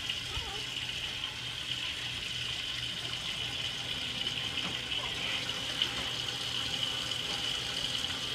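Faucet running steadily, a thin stream of water splashing into a stainless steel sink.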